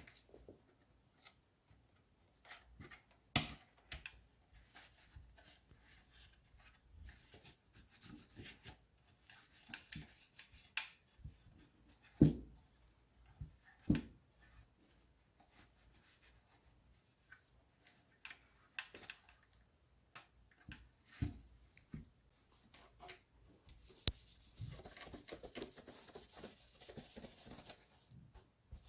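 Cleaning dust off an old cassette boombox's casing by hand: scattered rubbing and small clicks, with a few louder knocks, then steady fast scrubbing near the end.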